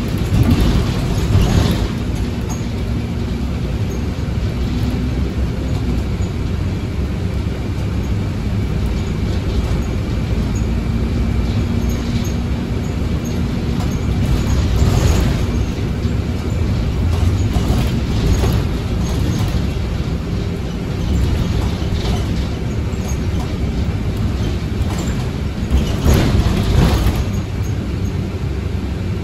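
Inside a Temsa Avenue Plus city bus under way: the engine runs with a low, steady road rumble. A few louder rattling knocks come from the body and fittings over bumps, about a second in, around the middle, and near the end.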